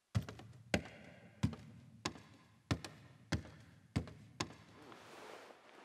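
Footsteps: eight even, distinct paces at a steady walking pace, stopping about four and a half seconds in, followed by a soft rustle.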